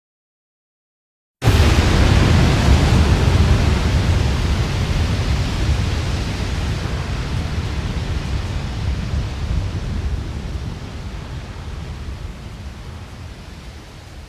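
AI-generated sound effect: after a second and a half of dead silence, a dense hiss over a deep rumble starts abruptly, then slowly fades away.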